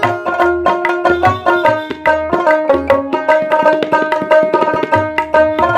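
Background instrumental music: a plucked string melody over a quick hand-drum rhythm.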